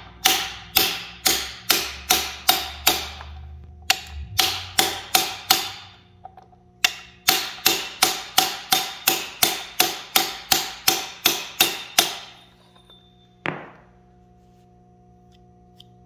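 Rapid metal-on-metal strikes driving a timing-chain crank gear onto the crankshaft snout of a big-block Chevy 496 stroker. The ringing blows come about two to three a second in three runs with short pauses between, and a single last blow near the end; the gear is not yet fully seated.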